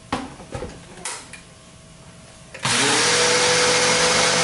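A few knocks as the container is set onto a countertop blender, then about two and a half seconds in the blender's motor starts, spinning up with a rising whine into a loud steady run.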